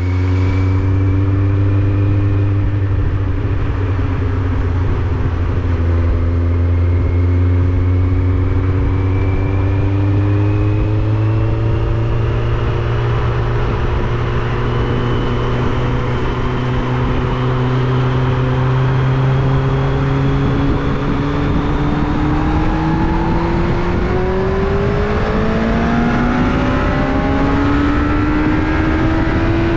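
Kawasaki Z750's inline-four engine running while riding, heard from a helmet-mounted camera, over a low wind rumble. The revs hold fairly steady, then climb over the last several seconds as the bike accelerates.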